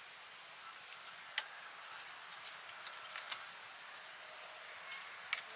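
A few sharp clicks and snaps, the loudest about one and a half seconds in, a pair a little past the middle and another near the end, over a steady faint hiss.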